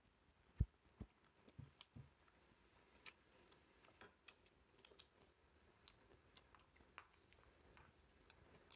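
Faint eating sounds: metal spoons clicking against small ceramic bowls and soft chewing, with a few low thumps in the first two seconds.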